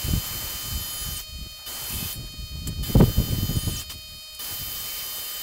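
Corded portable band saw running in short spells with a steady motor whine while it is handled against a steel channel beam, with a heavy thump about three seconds in.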